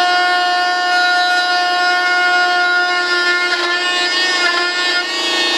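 Corded handheld rotary tool with a cutting disc running at high speed, a steady high-pitched whine, cutting through a composite wing skin. About three and a half seconds in the pitch wavers and dips for a second or so with scratchy clicks as the disc bites into the material under load.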